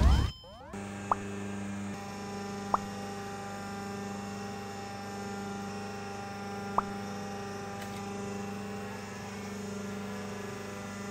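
A loud sweeping whoosh cuts off within the first second. Then a steady low electric hum, typical of a hydraulic press's electric pump motor standing by, broken by three sharp single clicks.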